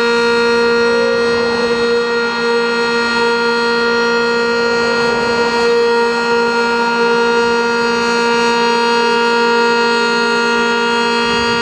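Sentry 10V outdoor warning siren sounding its alert signal, a loud steady tone held at constant pitch without rising or falling.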